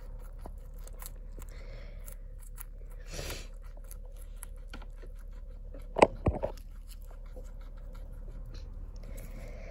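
Small pet rodent chewing a green leaf in its wire cage: faint crunching and small clicks throughout, with a short rustle about three seconds in and a couple of sharp knocks about six seconds in, over a steady low hum.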